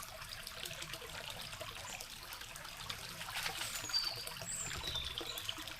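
Small forest stream trickling steadily, with a few faint high chirps near the middle.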